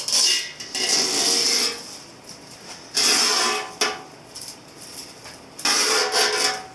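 Thin masking tape being peeled off a freshly painted metal gas tank, in three stretches of crackly peeling noise about a second each.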